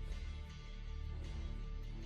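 Background music with soft plucked guitar-like notes over a steady low bass.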